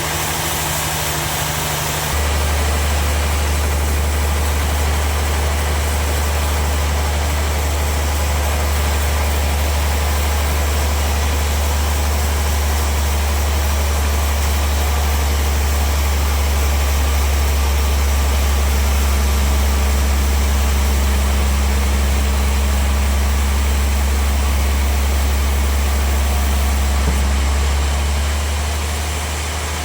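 Sawmill machinery running with a steady low hum over a noisy haze. The hum steps up about two seconds in and falls away near the end.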